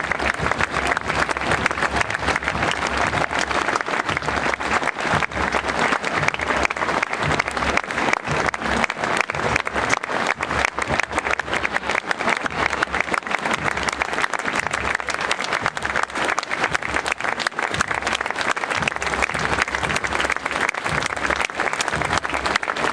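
A crowd applauding, dense continuous clapping that holds steady throughout.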